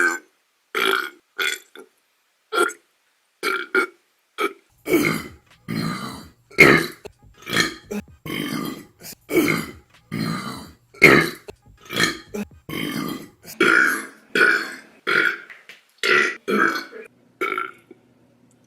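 A woman burping again and again, short voiced belches one after another, sparse at first and then about two a second.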